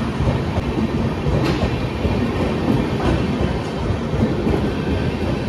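Tejas coaches of the Mumbai–New Delhi Rajdhani Express rolling past close by as the train picks up speed out of the station, a steady rumble of wheels on rail with clickety-clack.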